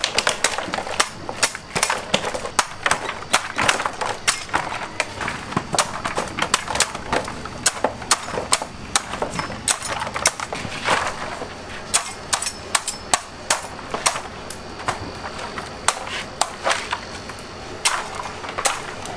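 Cleaver chopping young green coconuts off their bunch stalk: many sharp chops and knocks, a few a second and unevenly spaced, with coconuts dropping into a plastic basket.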